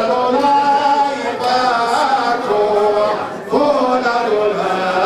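A man chanting a melody into a handheld microphone, in long held notes that step up and down in pitch, amplified.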